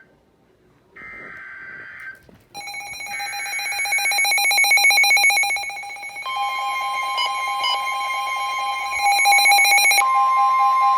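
Emergency Alert System signalling: a one-second burst of buzzy digital data tones, then a loud steady electronic alert tone. A second, higher tone joins about six seconds in, and the mix of pitches shifts again near the end.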